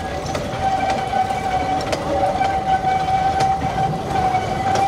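Narrow-gauge industrial train rolling slowly past, with a steady high whine held throughout, occasional sharp clicks from the wheels on the track, and a low rumble underneath.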